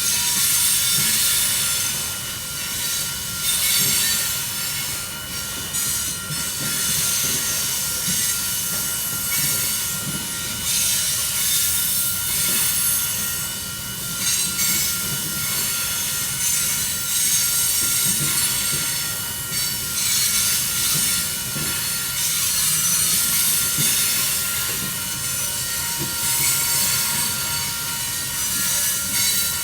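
Union Pacific coal train's cars rolling steadily past, steel wheels rumbling on the rails with continuous high-pitched screeching and scraping from the wheels.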